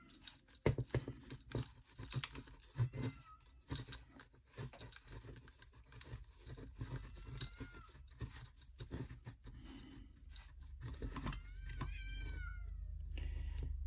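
Screwdriver and plastic parts clicking and knocking as the leg housing of an R2-D2 toy droid is pried apart to free a screw. A few short, high, arching squeals come through, the longest and loudest near the end, and a low hum comes in near the end.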